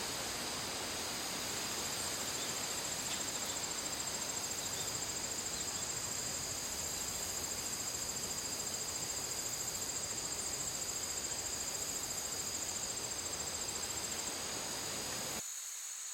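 Crickets chirping in a steady high-pitched trill over a soft, even wash of noise. Near the end the lower noise cuts off suddenly, leaving only the crickets.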